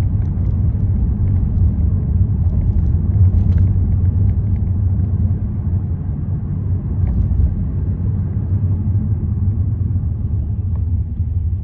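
A car driving on city roads, its tyre and engine noise making a steady low rumble.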